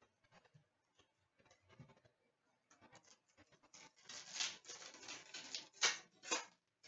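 Faint rustling and scraping of hockey card packs being handled: a string of short crinkling scrapes in the second half, after a nearly still first half.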